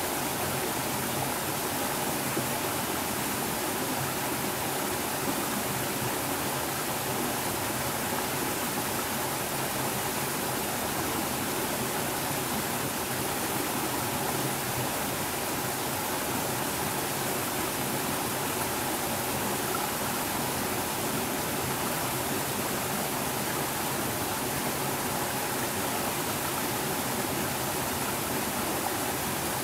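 Small mountain stream splashing over a low rocky cascade into a pool: a steady, even rush of water.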